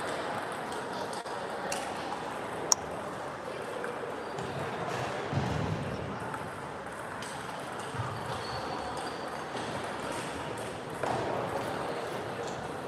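A celluloid-type table tennis ball struck once with a sharp click about three seconds in, over a steady murmur of voices and play in the hall.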